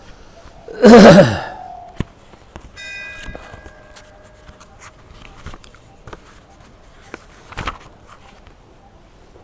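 A brief, loud voice sound about a second in, then a faint bell-like chime of several steady tones ringing for a second or two, with small clicks and handling noises.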